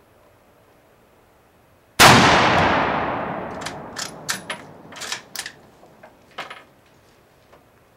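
A single rifle shot from a 1944 Mosin-Nagant M44 carbine (7.62×54R, bolt-action) about two seconds in, with a long echoing decay. It is followed by a run of short metallic clacks as the bolt is worked to eject the spent case and chamber the next round.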